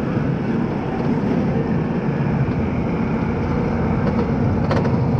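Wild mouse roller coaster car being hauled up the chain lift hill: the lift chain and track give a steady mechanical rumble and rattle, with a sharp click near the end.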